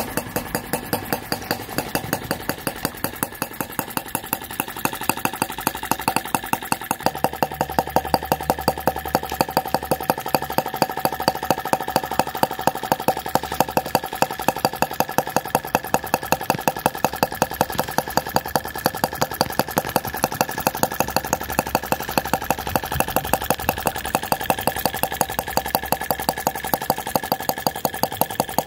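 Miniature model engine running steadily with a fast, even beat, with a deeper hum joining about seven seconds in.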